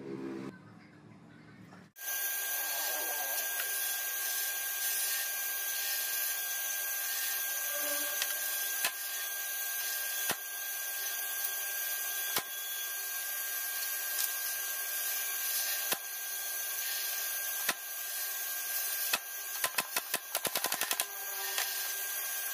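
Pneumatic brad nailer firing single nails every second or two, then a quick string of about eight shots near the end, over a steady hiss.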